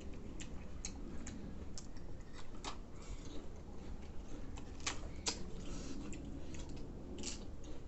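Eating sounds: crisp food being bitten and chewed close to the microphone, a dozen or so irregular small crunches and clicks.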